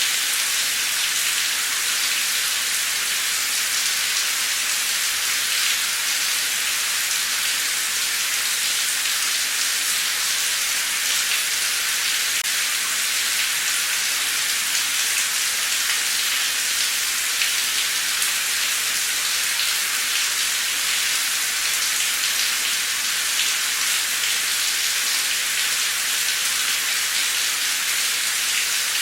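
Heavy, torrential rain pouring steadily, a dense hiss of many drops falling.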